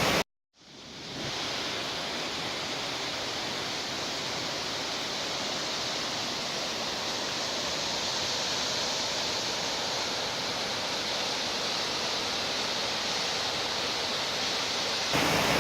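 Glen Alpine Falls rushing: a continuous, even roar of falling water. It cuts out to silence for a moment just after the start, then fades back in over about a second and holds steady.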